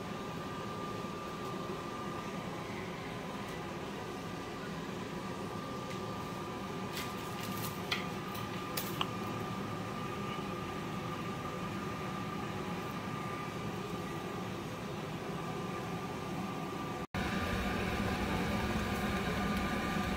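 Steady fan-like kitchen hum with a faint high whine in it. A few light clicks come about 7 to 9 seconds in, and the hum steps up slightly near the end.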